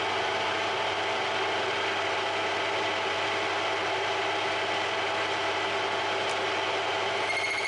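Metal lathe running steadily, turning to clean up a 304 stainless steel bar. A high-pitched whine joins in near the end.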